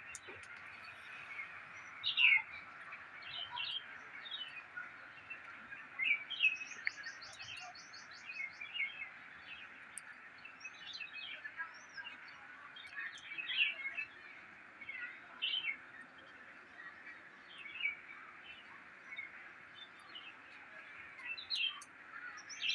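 Birds chirping and calling, short sharp notes every second or so over a steady background hiss, with a fast high trill about seven seconds in.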